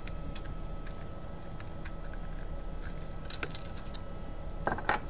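Small fawn bones clicking and tapping against each other and the tabletop as they are handled and sorted, with a few sharper clicks near the end, over a steady low hum.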